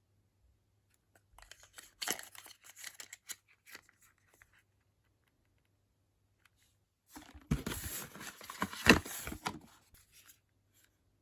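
Product packaging being torn and crinkled open by hand, in two spells: one starting about a second and a half in, and a louder one around seven seconds in with a few sharp clicks.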